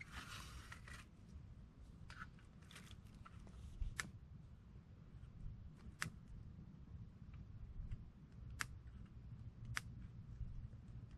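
Small wood fire crackling, with sharp single pops every second or two and a brief hiss near the start.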